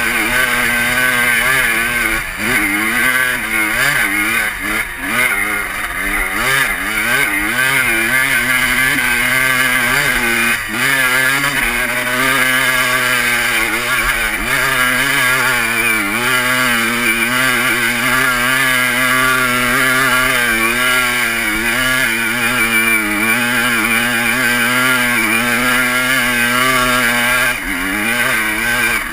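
Honda CR250 two-stroke dirt bike engine pulling hard up a steep climb, its pitch rising and falling with the throttle.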